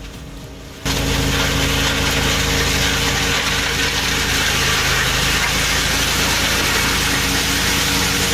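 Heavy machinery starting suddenly about a second in: a steady engine note under a loud, even hiss of machine noise, held without change.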